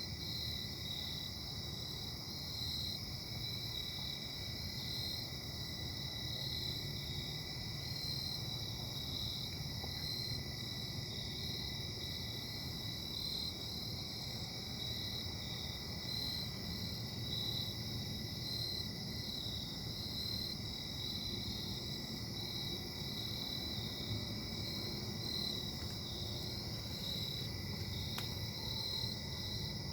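Industrial plant engine running steadily: a low rumble under a steady high whine with overtones, which the owner of the recording puts down to bad bearings.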